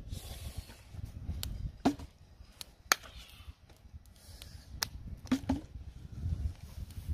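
Wooden sticks striking each other in a stick-hitting game: a series of sharp, dry clacks at uneven intervals, the loudest a little under two seconds and about three seconds in.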